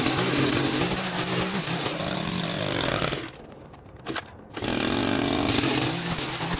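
Small gas engine of a yard power tool running, its speed wavering up and down. It cuts out suddenly a little past three seconds in and comes back just over a second later.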